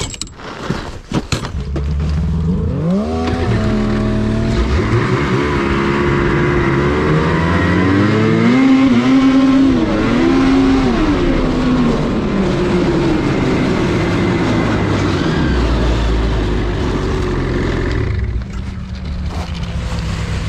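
Snowmobile engine starting about a second and a half in, then revving up and down as the machine pulls away and speeds up. It runs steadily at speed and drops back toward idle a couple of seconds before the end.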